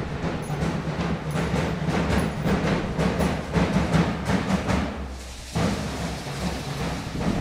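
Music driven by drums: dense, rapid drum strokes over a steady low tone. The drumming dips briefly a little over five seconds in, then resumes.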